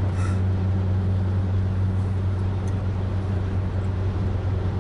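Road and engine noise inside a moving car's cabin at highway speed: a steady low drone under an even hiss.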